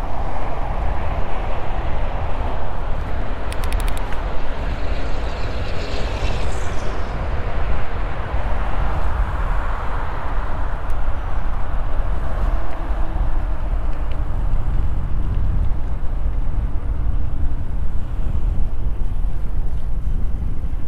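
Wind buffeting an action camera's microphone while riding an electric mountain bike, a steady low rush with no pauses. A brief falling whine comes through about six seconds in.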